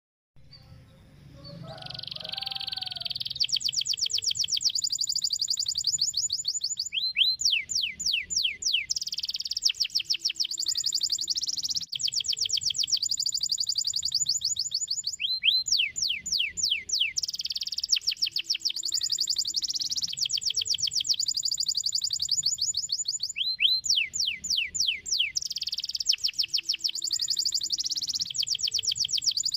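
Domestic canary singing a long, continuous song of rapid trills, starting about two seconds in, broken every eight seconds or so by a run of quick down-slurred whistles.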